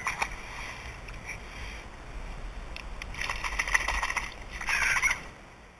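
Splashing water from a hooked bass at the surface, in two crackly bursts about three seconds in and near the end, over wind rumbling on the microphone.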